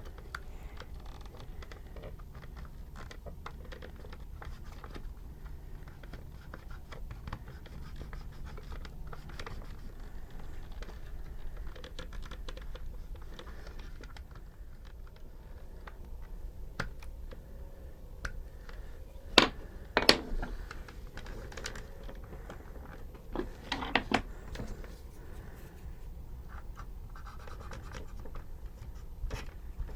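Light scratching and rubbing from hands working pinstripe tape onto a plastic toy truck body, with scattered small clicks. A few louder sharp clicks come about two-thirds of the way through.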